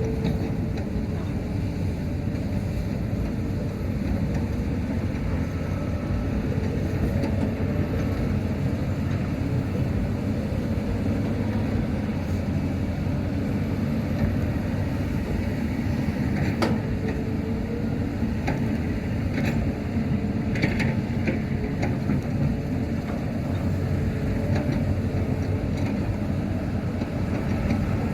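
Hitachi ZX200-5G hydraulic excavator's diesel engine working steadily under load as it digs and swings to load dump trucks. A few sharp knocks and clanks come through, the clearest about two-thirds of the way in.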